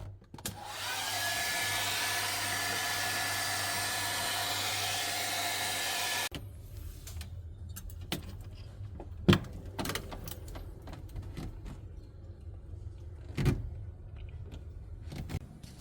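An electric blower motor spins up and runs with a loud hiss and a steady whine for about five seconds, then cuts off suddenly. After that come scattered knocks and clicks over a low hum.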